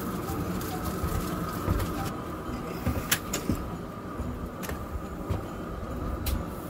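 Handling noises: a few sharp clicks and knocks over a low steady rumble and a faint steady hum, as a roast is lifted off a pellet grill and carried away.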